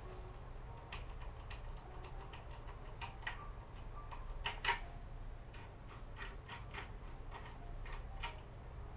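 Foil-impression lockpick being worked in the keyway of a double-row cylinder lock: irregular small metallic clicks and ticks as it is jiggled and turned, coming thickest in the second half.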